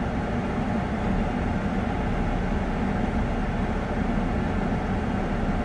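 Steady hum and air rush inside the cabin of a 2019 Lexus ES350 that is switched on and standing still, with no changes or clicks.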